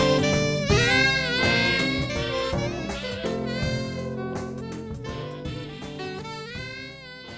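The song's instrumental ending fading out: a lead melody with bending notes over the band, growing steadily quieter.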